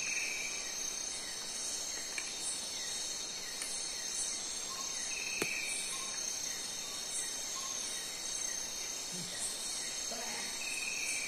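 Night insect chorus: a steady high-pitched trilling, with a higher chirp repeating every half second or so. A single sharp click about five seconds in.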